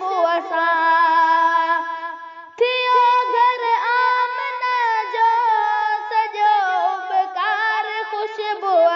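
A voice singing a Sindhi naat: long, wavering held notes that glide between pitches, with a brief break about two and a half seconds in.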